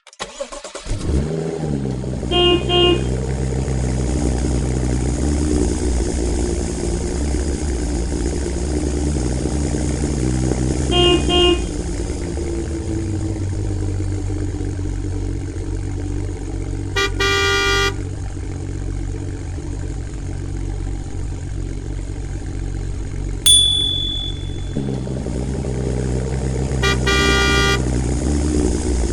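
Vehicle engine running steadily with its pitch rising and falling, and horn honks over it: two short honks about two seconds in, two more near eleven seconds, and longer honks around seventeen and twenty-seven seconds. A single sharp ringing ping sounds near twenty-three seconds.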